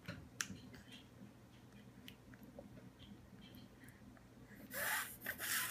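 A baby mouthing and chewing spoon-fed puree: small wet smacks and clicks of lips and tongue. Near the end comes a louder rush of noise.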